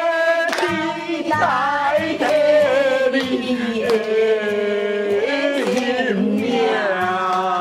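A voice singing a slow Taiwanese love song with musical accompaniment, holding long notes that slide between pitches.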